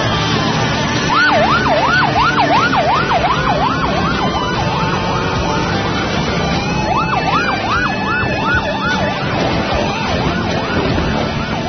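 A yelp siren quickly wavering up and down, about four sweeps a second, in three spells, over the running of many motorcycle engines riding in a group.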